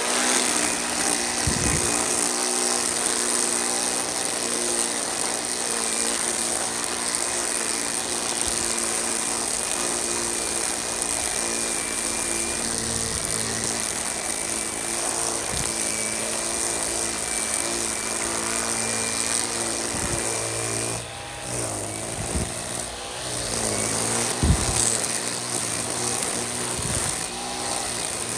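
EGO Power+ battery string trimmer running at speed, its electric motor whining steadily as the spinning line cuts grass. The motor eases off briefly about two-thirds of the way through, then spins back up.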